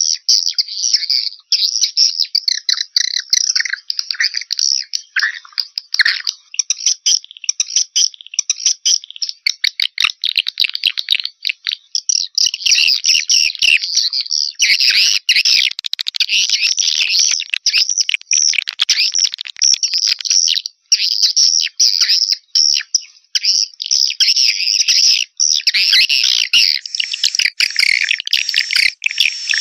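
Swiftlet lure call: a dense, continuous twittering chatter of edible-nest swiftlets, rapid high chirps packed closely together, growing fuller and louder about halfway through. It is a call track played to draw swiftlets into a nesting house.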